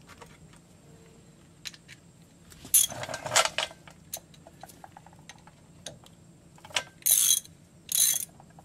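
Socket ratchet wrench ratcheting as a brake caliper's bolts are tightened down, in three loud bursts of rapid clicking about three, seven and eight seconds in, with a few lighter clicks of the socket and wrench between.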